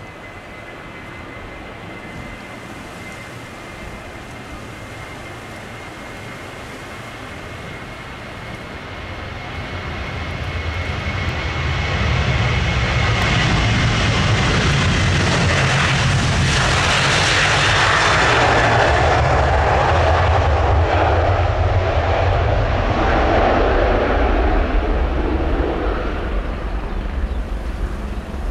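Boeing 737-800's CFM56-7B turbofans at take-off power. A faint steady whine is heard first, then the jet noise swells from about a third of the way in, is loudest through the middle, and eases off near the end as the airliner passes.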